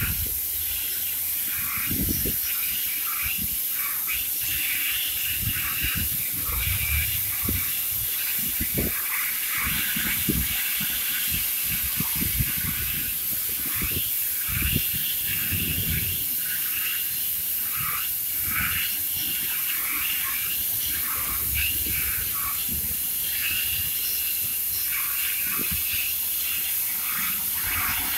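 CNC profile cutting machine at work: a steady hiss runs throughout, with irregular crackling and scattered low knocks.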